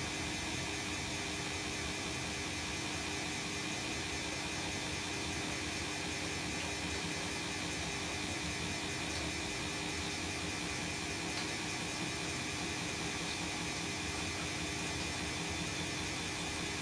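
Bosch WAE24162GB/03 washing machine running a rinse and spin cycle: a steady hum and whir that holds even throughout.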